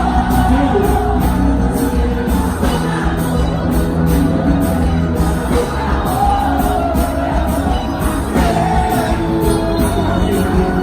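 Loud quadrilha junina music: a sung melody over a steady percussion beat.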